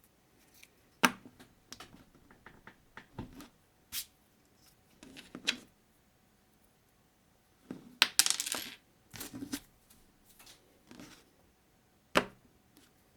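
Small plastic building bricks clicking and clattering as they are handled and set down. There are sharp single clicks about a second in, around four seconds and near the end, with a longer rattle around eight seconds.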